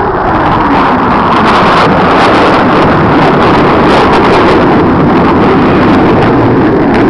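Jet roar of two F/A-18 Hornets' turbofan engines making a low, fast pass, loud throughout. Early on a whine drops steeply in pitch as the jets go by, and the roar carries on with a ragged crackle.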